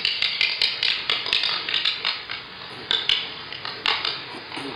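Kitchen utensils clacking and tapping in a quick, irregular run of sharp clicks.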